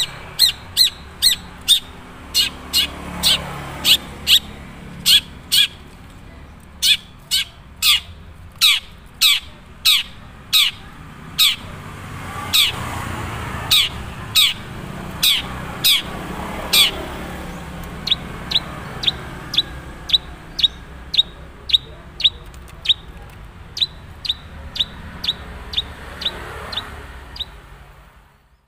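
Long-tailed shrike (cendet) of the Madura type calling: a long series of sharp, high notes that sweep downward, about two a second, becoming shorter and a little quicker in the second half. It is the bird's own natural call, not yet filled with many learned imitations of other birds.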